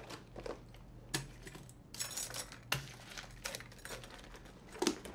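Rummaging through a small metal-framed handbag: things rustle and small hard objects clink and rattle, with scattered sharp clicks. The loudest click comes near the end.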